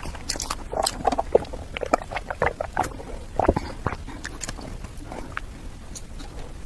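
Close-miked eating sounds of someone chewing cake: an irregular run of short wet clicks and smacks from the mouth.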